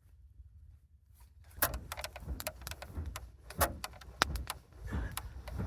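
Fire-lighting materials being handled: a run of sharp, irregular crackles and snaps that begins about a second and a half in.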